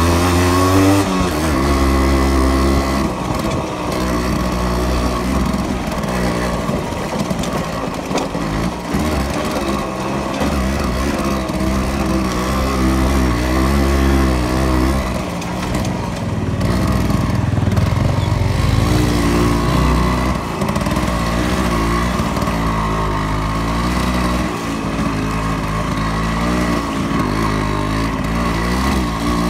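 Yamaha RX-100's two-stroke single-cylinder engine running as the motorcycle is ridden, its revs rising and falling over and over with the throttle.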